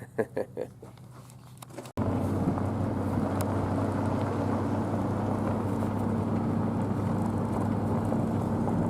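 A vehicle engine running steadily with an even rush of noise over it, starting abruptly about two seconds in.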